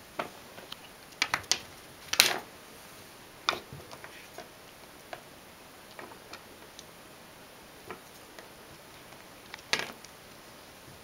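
Irregular taps, clicks and short scrapes of a pruned kiwi-vine branch and a ragdoll cat's claws against a wooden floor as the cat bats and chews the stick. A louder scraping rattle comes about two seconds in, and another near the end.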